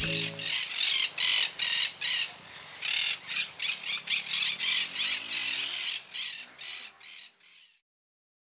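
A series of short, harsh rasping calls from an animal, a few a second, fading out near the end.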